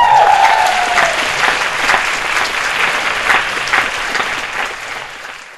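Audience clapping and cheering, opening with a high, falling cheer. The applause fades out near the end.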